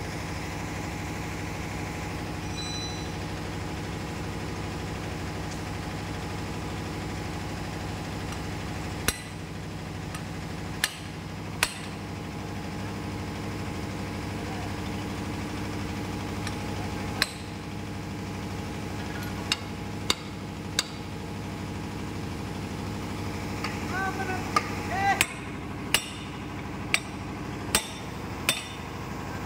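About a dozen sharp metal-on-metal strikes from a hammer hitting a wrench bar to loosen the crankshaft damper pulley bolts on a Cummins KT1150 engine. They come at irregular intervals and closer together in the last few seconds. A steady engine drone runs underneath.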